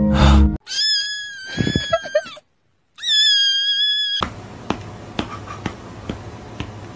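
Two long, high-pitched cat meows, the first starting just under a second in and the second around three seconds in, with a short silence between them. After that comes a quieter noisy stretch with scattered clicks.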